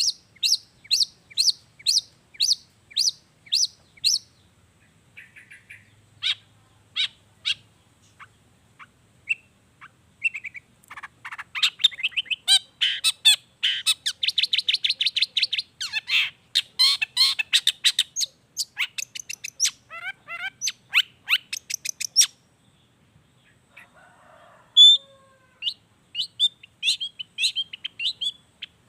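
Long-tailed shrike (cendet) singing: sharp high notes repeated about twice a second, a dense fast chattering run in the middle, a short pause, then more sharp notes near the end.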